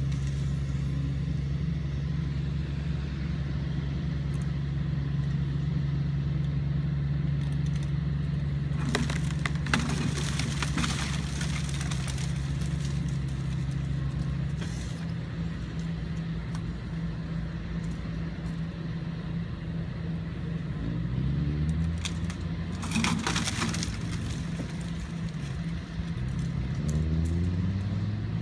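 Kobelco SK140-8 excavator's diesel engine running steadily under hydraulic load. It drops in pitch about halfway through and revs up twice near the end. Clusters of cracking and snapping come about nine to eleven seconds in and again around twenty-three seconds, as wood breaks while the tree is pushed over.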